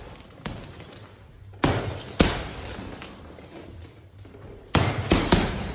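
Boxing gloves punching a hanging leather heavy bag, each blow a sharp thud. Two punches land about half a second apart, then after a pause a quick burst of three near the end.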